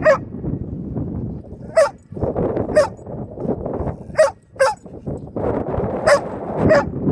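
A dog barking, about seven short barks at uneven intervals, over a steady low rushing noise.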